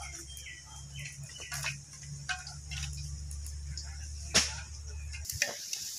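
Outdoor ambience: a steady high insect hiss over a low hum, with a few short chirps and scattered clicks, the sharpest about four seconds in. The low hum stops abruptly about five seconds in.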